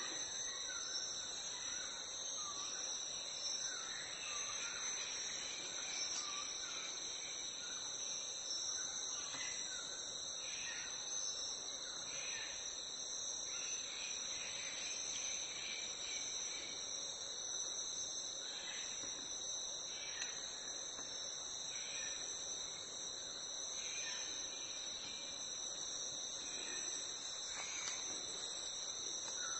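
Steady, continuous high-pitched chorus of insects, with faint short chirping calls scattered through it.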